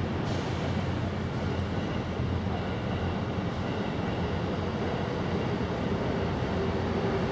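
Steady low rumble of distant vehicles, with a faint humming tone coming in near the end.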